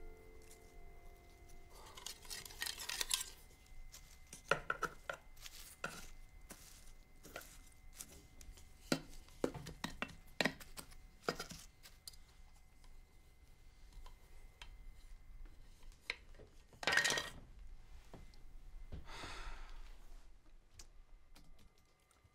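Quiet, scattered small clicks and snaps with a few brief rustles of leaves and twigs as a potted flowering shrub is handled and trimmed by hand.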